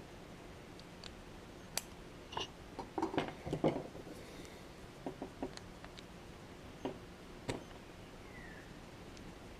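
Light clicks and taps of small parts from a disassembled RC buggy centre differential being handled and set down, with a quick cluster of knocks about two to four seconds in and single clicks after.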